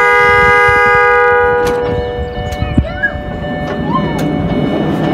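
A park mini train's horn sounds a steady chord of several notes for about two seconds. The train then runs along its track with a rumble and sharp clicks of the wheels about once a second.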